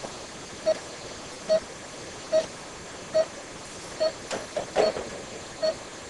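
Patient monitor's pulse beep sounding steadily at heart rate, a short high tone about once every 0.85 s (roughly 70 a minute), over a steady room hiss. A brief rustle and clicks come about four to five seconds in.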